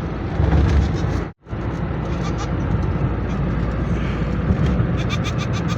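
Steady road and engine noise inside a moving car, with a goat bleating in the vehicle. The sound drops out for a split second about a second in.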